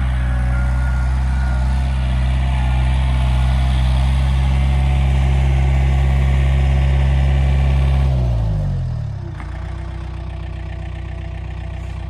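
Tractor engine running steadily at raised revs, then throttled back about eight seconds in, its pitch falling and settling to a lower, quieter idle.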